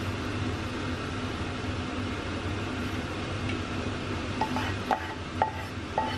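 Risotto simmering in a stainless steel sauté pan on an induction hob: a steady hiss over a low hum. About four seconds in, light plucked notes of music begin, repeating at one pitch about twice a second.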